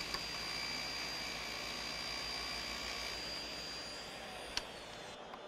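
Table saw cutting a rabbet in a small wooden piece. The blade gives a steady high whine over a rushing hiss, and part of the cutting tone stops about three seconds in. Near the end there is a sharp click, after which the whine starts to fall.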